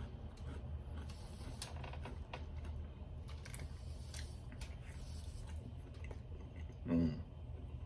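Close-miked chewing of a fried bologna sandwich on soft white bread, with scattered short wet mouth clicks over a steady low hum. About seven seconds in comes a brief louder voiced sound from the eater.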